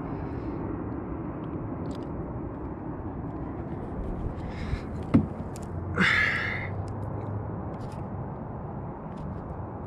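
Steady background noise. About five seconds in, a sharp knock as a plastic oil jug is set down on concrete, then a short high-pitched squeak that falls in pitch and fades.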